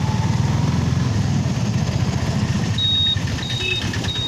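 A motor vehicle's engine and road rumble running steadily. From about two-thirds of the way in, a high-pitched electronic beep sounds in short on-off pulses.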